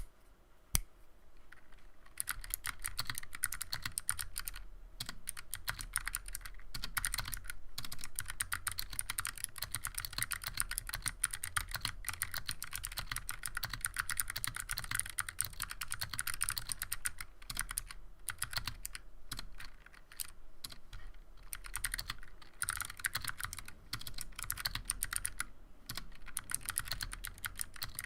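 Typing on a 60% keyboard with stock, unlubed, unfilmed Razer Purple clicky optical switches and stock keycaps. A single click just under a second in, then a fast, continuous run of sharp key clicks with short pauses now and then.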